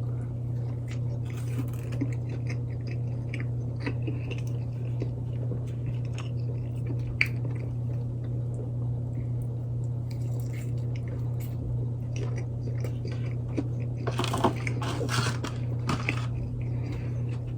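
A person chewing and biting into a Wendy's chicken sandwich dipped in ranch, with close, wet, crunchy mouth sounds. A burst of louder crunching comes near the end. A steady low hum runs underneath.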